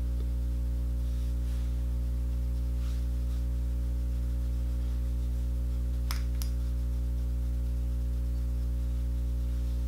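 Background music: a steady, sustained low drone with no beat, with two faint clicks about six seconds in.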